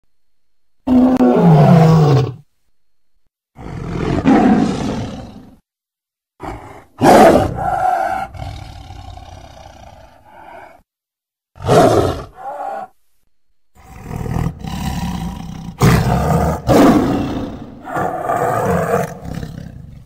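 Big cat roaring and snarling: a series of about five loud, separate calls with dead silence between them. The first call drops in pitch.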